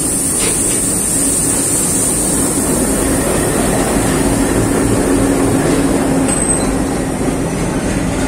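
Indian Railways WDM-class diesel locomotive and its passenger coaches rolling slowly past: a steady engine drone with the rumble and rattle of wheels on the rails.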